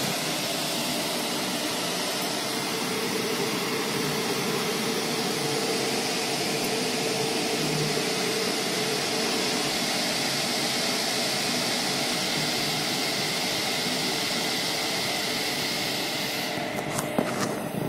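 Geek Ikuku A2 air purifier's fan running steadily, a smooth rush of air with a faint steady hum. Near the end the hiss thins and a few clicks sound.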